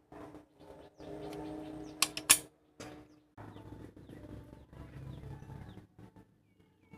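Two sharp cracks from a homemade rifle, about a quarter second apart, over a low steady hum. Birds chirp faintly in the background.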